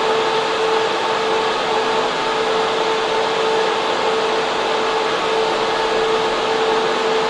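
Data center server room: server and air-cooling fans running, a loud steady rush of air with a steady hum running through it.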